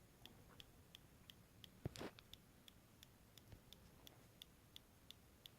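Faint, regular clicking from inside a MacBook laptop, about three clicks a second, with one louder knock about two seconds in. The owner suspects an electrical short behind the clicking.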